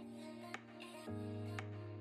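Soft background music: sustained chords that change about a second in, with a light tick roughly once a second.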